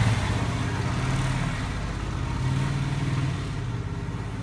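An engine running steadily: a pulsing low rumble with a hiss above it, easing off near the end.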